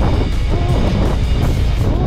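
Background music over a steady low rumble of wind on the microphone and the boat's engine.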